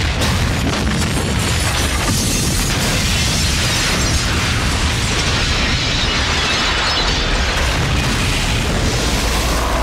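Film sound effect of a huge explosion: a loud, unbroken rumble, deepest in the low end, that holds steady without letting up.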